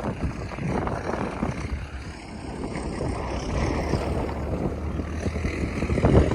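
Boat engine running steadily, a low hum under rushing noise that grows louder near the end.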